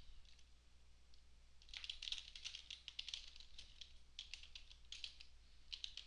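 Typing on a computer keyboard: quick, faint runs of key clicks that start a little under two seconds in, as a command is keyed into a terminal.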